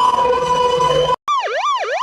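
Two police siren sound effects back to back: a steady held siren tone that cuts off just over a second in, then after a brief gap a fast yelp sweeping up and down a little over twice a second.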